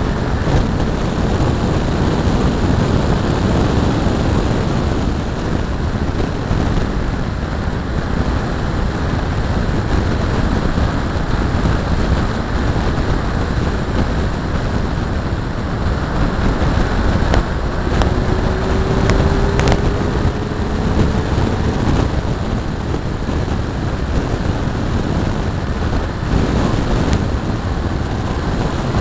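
1988 BMW 325is at speed, heard from a bumper-mounted camera: a steady heavy rush of wind buffeting the microphone and tyre and road noise. A faint tone rises slowly about midway, and a few sharp ticks come just after the middle and again near the end.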